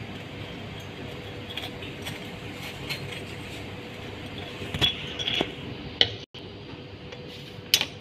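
A metal spoon clinks and scrapes while spreading mayonnaise on a split bun, with a few sharp clicks in the second half. A steady kitchen hum with one faint constant tone runs underneath.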